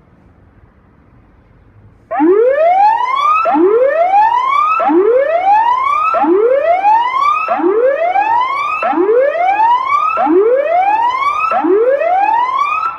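Tsunami warning siren sounding a loud repeated rising whoop tone. It begins about two seconds in and gives about eight sweeps, each climbing in pitch over a second or so.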